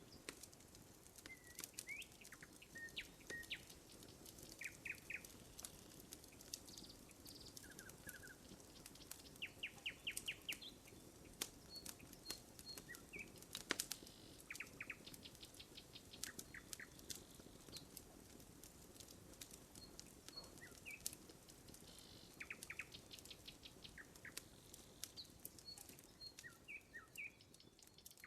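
Wood campfire crackling with scattered sharp pops, one louder pop about halfway through, while small birds chirp in short quick series.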